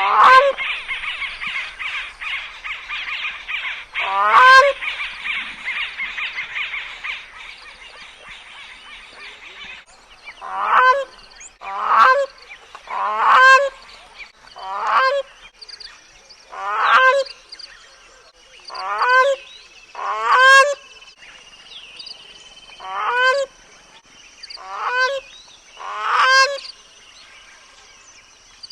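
Gray crowned crane giving loud honking calls, each a short rising-and-falling note, about a dozen in all; from about ten seconds in they come regularly, roughly one every second and a half. During the first eight seconds a dense chatter runs under the first two calls.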